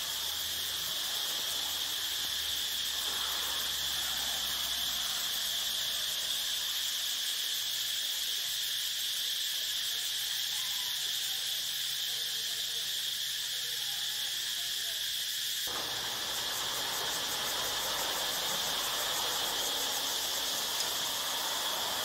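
Steady, high-pitched insect chorus shrilling without a break over a faint hiss. About two thirds of the way through, a broader low background noise comes in underneath.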